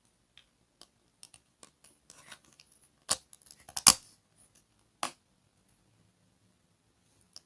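Small objects being handled up close: a run of light clicks and scrapes, then three sharper knocks or clinks about three, four and five seconds in.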